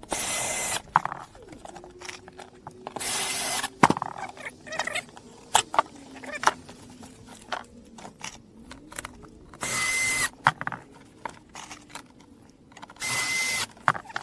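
Cordless drill run in four short bursts of under a second each, fastening the perforated steel strapping that bundles the pipes, with light clicks and rattles of the metal strap being handled between the bursts.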